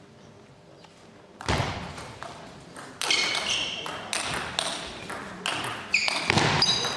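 Table tennis rally: the ball is hit back and forth, with sharp clicks and short ringing pings off the bats and table about twice a second. The rally starts a few seconds in, after a single thud about a second and a half in.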